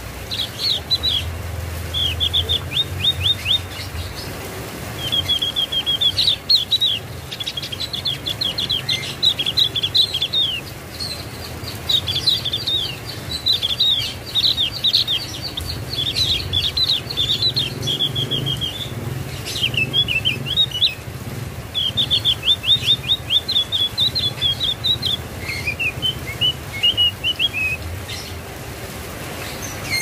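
Javan grey-throated white-eye (opior jawa) singing: rapid runs of short, falling chirps, each phrase a second or two long, repeated with brief pauses.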